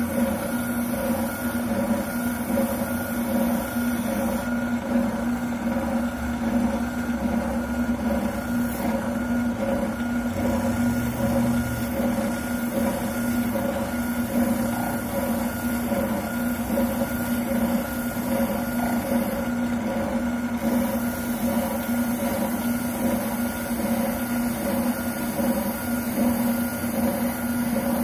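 Wilton oscillating sander running with a steady hum while a shotgun buttplate is ground down against it.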